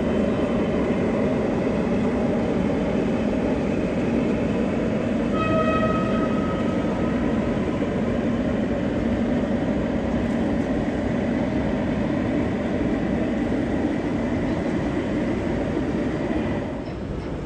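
O gauge model train running on a layout, a steady rumbling noise, with a short pitched horn sound from the sound-fitted locomotive about five seconds in.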